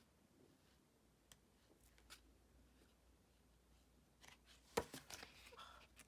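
Mostly quiet room tone, then near the end a sharp tap followed by a short run of crackly paper rustling as sticker-book pages are handled.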